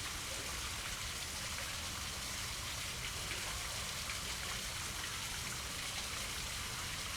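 Steady hissing background noise with a fine, faint crackle, even in level throughout.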